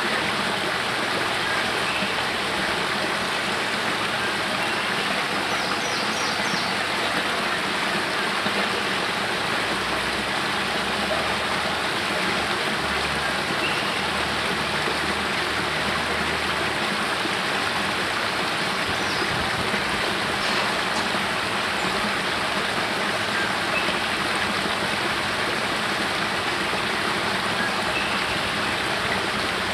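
Spring water pouring steadily down a small rocky cascade from a cave mouth into a pool: a constant splashing rush.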